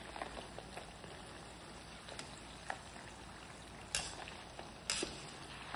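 Papdi sizzling and crackling as they deep-fry in hot oil in a steel kadhai. A couple of sharper metal clicks come about four and five seconds in, as a wire skimmer knocks against the pan while turning them.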